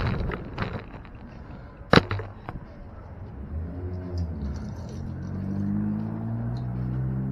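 A sharp click about two seconds in, with a few smaller clicks just after, then the low hum of a vehicle engine running in the street, drifting slowly in pitch.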